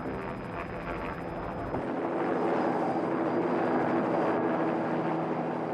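Helicopter engine and rotors running steadily in flight, swelling louder about two seconds in.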